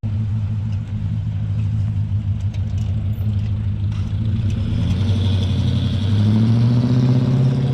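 A car engine running at a steady low pitch, then revving up, its pitch rising over the last few seconds.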